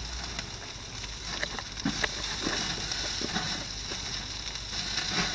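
Raw chicken quarters, squash slices and onions sizzling steadily on a charcoal grill, with a few light clicks and the rustle of a plastic bag as onions are taken out of it.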